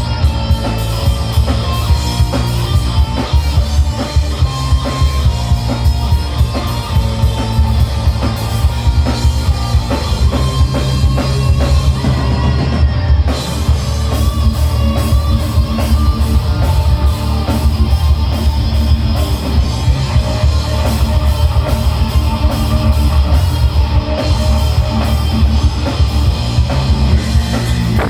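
Heavy metal band playing live: distorted guitars and bass over a fast, dense drum-kit beat.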